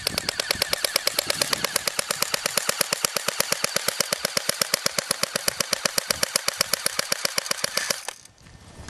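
Airsoft MP5K-style submachine gun firing a long full-auto burst: a rapid, even stream of sharp mechanical cracks that stops about eight seconds in.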